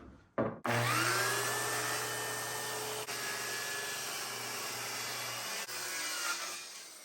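Circular saw starting up with a rising whine about half a second in and running steadily as it rips a rough-cut pine board lengthwise, then released shortly before the end and winding down.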